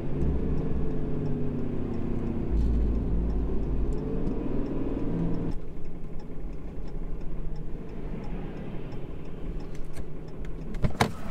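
Steady engine and road noise heard inside a pickup truck's cab while driving, with the turn signal ticking at an even pace. About halfway through the sound drops as the truck slows onto the shoulder, and there are a couple of sharp clicks near the end.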